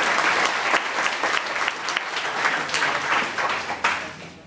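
Audience applauding, a dense patter of many hand claps that dies away near the end.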